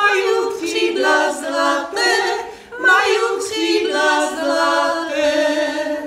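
Background music: an a cappella choir, several voices singing held notes together without instruments, beginning to fade out near the end.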